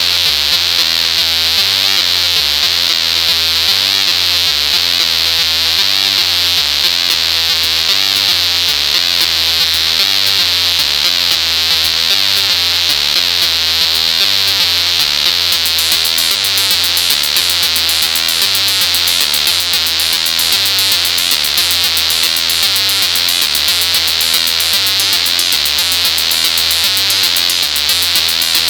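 Dense instrumental music with a steady beat, electric guitar over synthesizer and a repeating bass line; the high end grows busier about halfway through.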